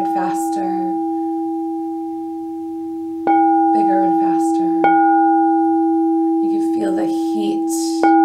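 Frosted quartz crystal singing bowl ringing with a steady low tone and a higher overtone. It is struck with its wand about three seconds in, again a second and a half later, and once more near the end, and each strike makes the ringing louder.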